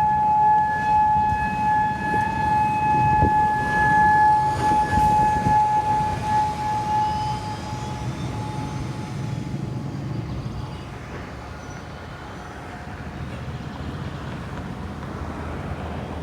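Outdoor tornado warning siren sounding a steady, unwavering tone, which fades away about halfway through. It is most likely the scheduled monthly siren test. Road traffic rumbles underneath and is left on its own at the end.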